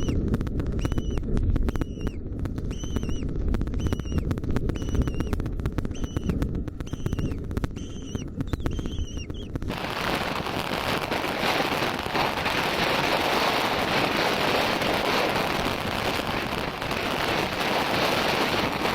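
A bird giving short, clear calls over and over, about two a second, over a loud low rumble. About halfway through the calls stop and a loud, steady hiss takes over.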